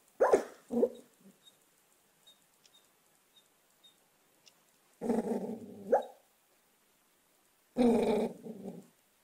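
A sleeping dog making pig-like 'oink' grunts: two short ones at the start, then two longer, drawn-out grunts about five and eight seconds in.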